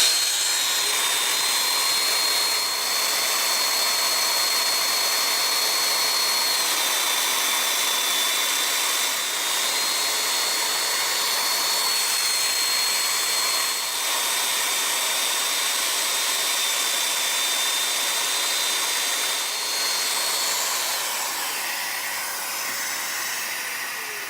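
Festool Domino joiner with its 8 mm cutter and a dust extractor attached, running steadily as it cuts mortises for Domino connectors. Its high whine dips slightly in pitch now and then, and it winds down over the last few seconds.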